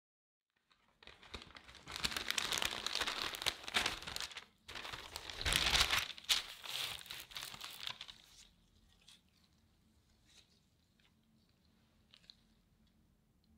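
Parchment baking paper crinkling and rustling as it is handled around a chilled roll cake, starting about a second in and dying down after about eight seconds, followed by a few faint light taps.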